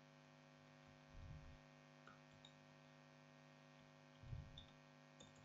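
Near silence with a steady low electrical hum in the microphone, and two faint low thumps, about a second in and again about four seconds in.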